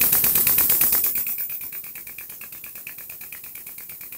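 Powered grease gun pumping grease into a mower deck spindle's grease fitting, a rapid even clatter of about eight to ten clicks a second. It drops in level about a second in and then carries on steadily.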